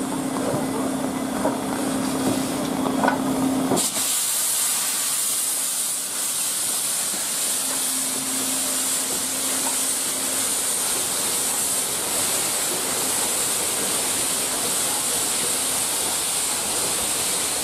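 Steam hissing loudly and steadily as it blasts out from beneath D51 498, a steam locomotive. It comes on suddenly about four seconds in, cutting across a steady hum.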